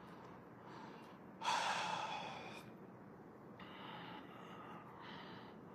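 A man's heavy breath about a second and a half in, followed by two fainter breaths.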